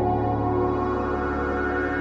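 Ambient background music of steady, sustained ringing tones, the higher tones growing brighter near the end.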